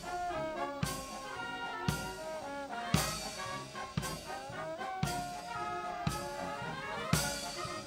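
Brass band playing, with trumpets and trombones carrying the tune over a heavy drum-and-cymbal beat about once a second.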